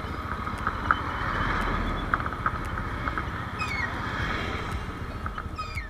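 Rusi SSX200 motorcycle ridden along a highway: steady wind rush over the helmet camera with the engine's low running drone underneath.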